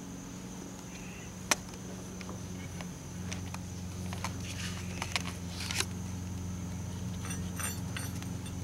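Steady low background hum with scattered sharp clicks and knocks from handling. Light metallic clinks come near the end.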